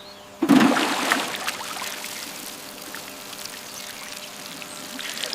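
Water pouring in a steady gush, starting suddenly about half a second in and slowly tapering off.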